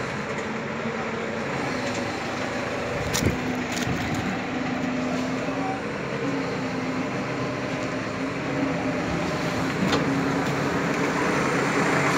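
Small truck's engine running steadily to power its mounted crane as the crane handles a heavy load, a continuous drone. A sharp knock about three seconds in and another near ten seconds.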